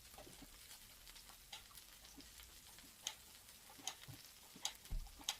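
Faint, scattered clicks and light taps of cutlery and dishes during a meal, a few close together near the end.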